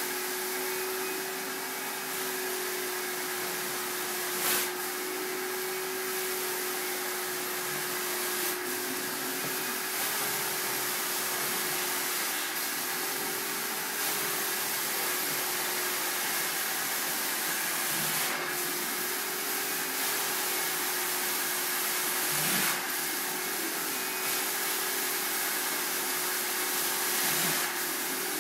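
Carpet steam-cleaning extractor's vacuum running steadily through the wand as it is pulled across carpet: an even hiss with a steady hum, with short surges every few seconds.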